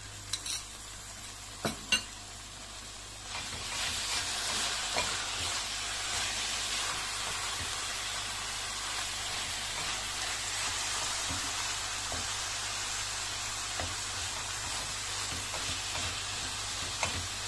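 A few sharp utensil clinks, then from about three seconds in a steady sizzle as onions, chopped greens and tomato paste fry in oil in a stainless steel pot, stirred with a wooden spoon, with light knocks of the spoon.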